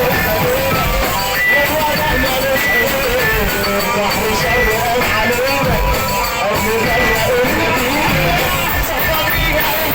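Music: an Arabic song playing, its lead melody winding up and down over a full accompaniment.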